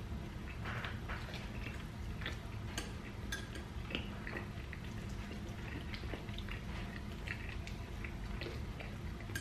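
Close-up eating sounds: wet chewing and lip smacking with small irregular clicks, and the light scrape and tap of a fork on a plate, over a steady low hum.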